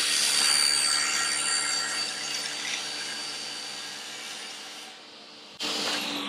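Table saw with a thin-kerf carbide blade crosscutting plywood: a harsh cutting noise over the steady motor, loudest in the first second and fading as the cut goes on. About a second before the end there is a brief harsh burst, then the blade's pitch starts falling as the saw winds down.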